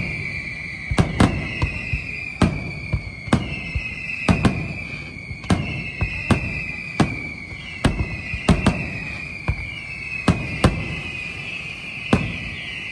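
Fireworks display: aerial shells bursting with sharp bangs at uneven intervals, about one or two a second, over high whistling that falls slightly in pitch and restarts every second or two.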